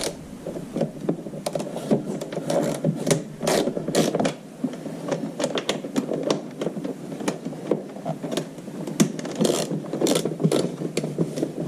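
Ratchet wrench with a 10 mm socket working a bolt on the scooter's deck: a run of irregular clicks and metal scrapes.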